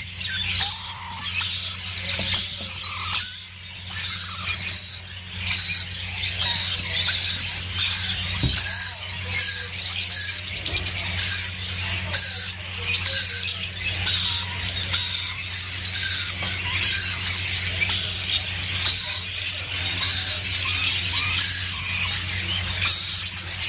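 Several parrots squealing and chattering without a break, with a steady low hum underneath.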